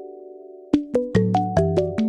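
Phone ringtone: a short electronic melody of quick struck notes over a bass line, played as a loop. The last notes of one pass ring out, then the phrase starts again about three quarters of a second in.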